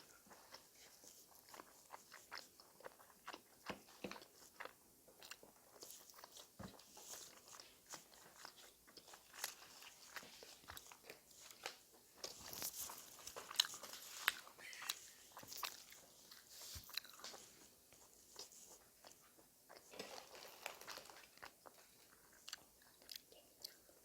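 A person chewing and biting a mouthful of bossam (boiled pork wrap) dipped in ssamjang, with many small, crisp, irregular clicks of the food between the teeth.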